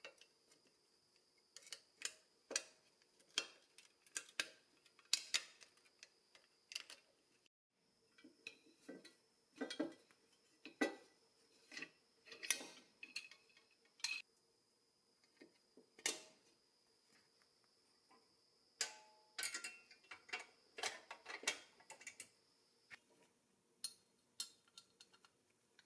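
Irregular clicks, taps and light knocks of small powder-coated pressed-steel toy parts and a steel C-clamp being handled and fitted together on a wooden bench, over a faint steady hum.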